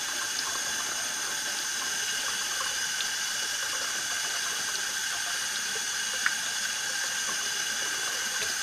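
A kitchen faucet runs steadily into a stainless steel sink, with a few faint clicks and one sharper click about six seconds in.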